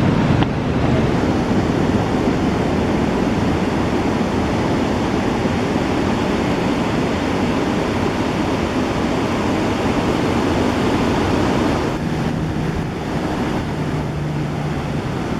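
Ocean surf breaking and washing up the beach, with wind on the microphone. About twelve seconds in, the wash thins and a steady low hum comes in.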